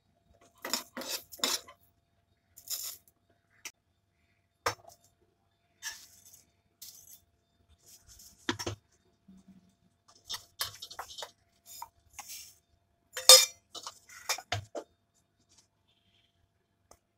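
Steel spoon scraping and clinking against a small metal pan as dry rice grains are stirred and shifted, in short scattered bursts. One sharp metallic clink about two-thirds of the way through is the loudest sound.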